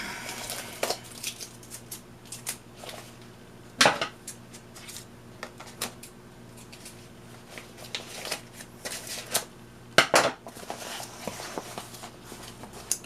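Paper rustling and crinkling as a potted plant is unwrapped from its printer-paper packing, with scattered light clicks and two sharper knocks about four and ten seconds in.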